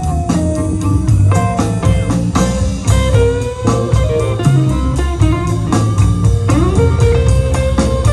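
Live band playing an instrumental passage: electric and acoustic guitars, bass guitar and a drum kit, with bending lead-guitar notes over a steady drum beat.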